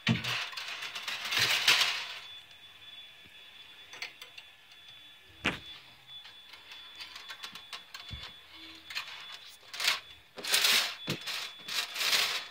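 Light metal hanging chain jangling and clinking as it is handled and hooked onto a metal light fixture. It is busiest at the start and again near the end, with scattered clicks between.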